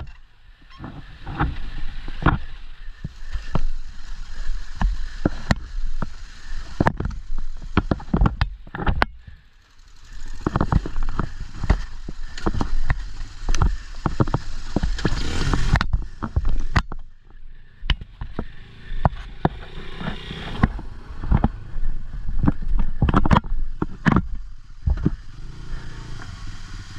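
Pit bike engines running unevenly, mixed with irregular knocks and clatter as the bikes are worked over rough ground.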